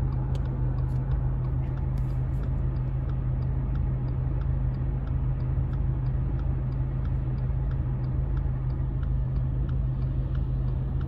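Steady low hum of a car heard from inside the cabin while it waits in traffic to turn, with the turn-signal relay ticking evenly about three times a second.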